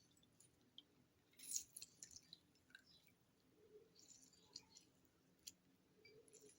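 Faint wet squishing, small clicks and drips as half a lemon is squeezed by hand into onion juice, with one brief louder squish about a second and a half in.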